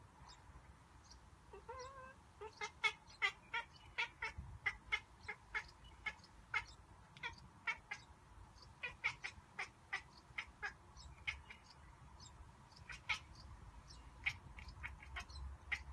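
Domestic cat chattering at birds: runs of short, rapid chirps, several a second, broken by brief pauses, starting a couple of seconds in. The sound is likened to a monkey's.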